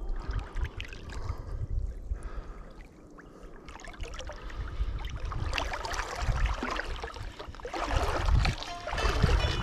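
Wind gusting on the microphone, with water lapping at the bank and light handling of a baitcaster rod and reel.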